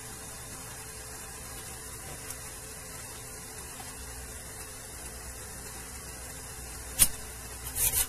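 Handling of an amplifier circuit board against a steady low hiss and hum: one sharp click about seven seconds in, then a short cluster of clicks and rustling near the end as the board is set down in the chassis.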